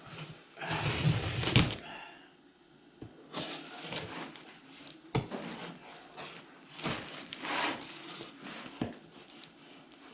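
Packaging wrapping rustling and crinkling in several bursts as it is cut and pulled open one-handed, with a few sharp clicks between them.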